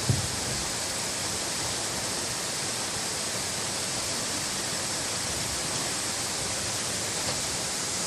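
Steady rush of flowing water from a stream, with a brief low thump right at the start.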